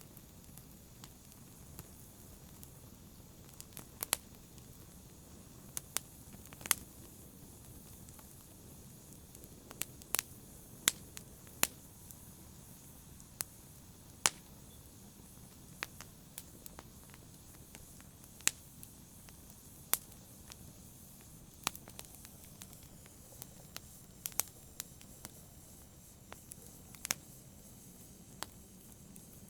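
Wood fire burning in a fireplace: a soft steady hiss under irregular sharp crackles and pops, about one or two a second.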